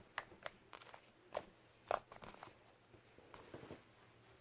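Scattered small clicks and soft taps from things being handled, about seven or eight spread over the few seconds.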